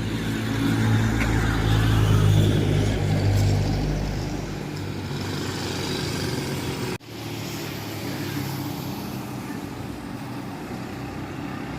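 Motor vehicle engine and road noise. A deep engine rumble swells over the first couple of seconds and fades about four to five seconds in, leaving a steadier traffic hum. The sound cuts out for an instant about seven seconds in.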